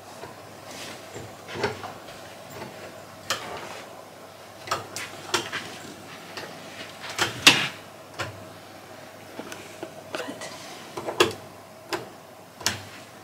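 Scattered knocks, thumps and clicks of luggage being carried in and set down, with the sharpest knock a little past halfway. A few clicks near the end come from the wall light switches being pressed.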